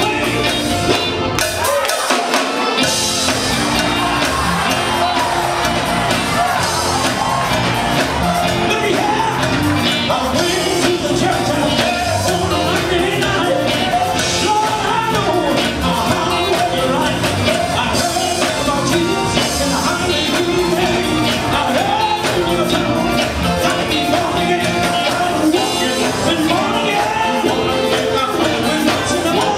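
Live gospel music: a male vocal group sings, with shouted lead lines, over a band of electric guitar, bass guitar, keyboard and drum kit. The bass and drums drop out briefly about two seconds in, then come back.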